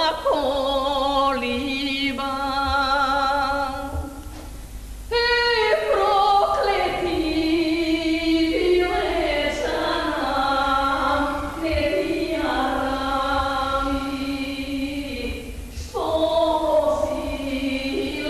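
A woman singing a Macedonian folk song in long held notes with wide vibrato, with short breaks for breath about four and sixteen seconds in.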